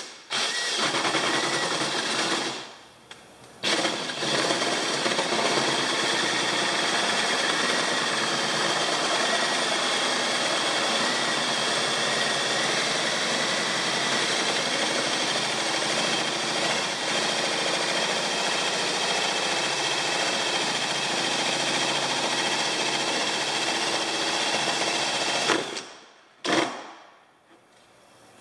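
Power drill running a 1 1/4-inch paddle bit through a kayak's deck, boring a large hole: a steady drilling sound with a brief pause about two seconds in, then running on until it stops near the end, followed by a click.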